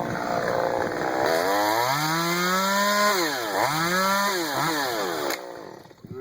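Two-stroke chainsaw revving: its engine speed climbs about two seconds in, dips and picks up again several times, then cuts off about five seconds in.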